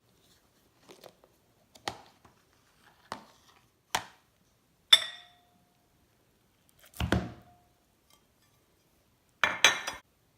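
A string of separate kitchen knocks and clinks, as of dishes and utensils being handled, about one a second. Two of them ring briefly. There is a heavier knock about seven seconds in, and a quick rattling cluster near the end.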